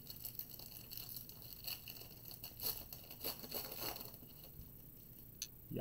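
Faint papery rustling and light flicks of baseball cards being slid and thumbed through by hand, a string of small scratchy ticks that thins out after about four seconds, with one sharper click near the end.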